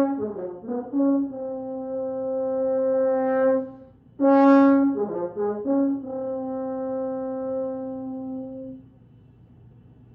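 Solo French horn playing unaccompanied: long held notes broken by quick falling runs, with a short breath gap about four seconds in. The last note fades out near the end, leaving faint room hiss.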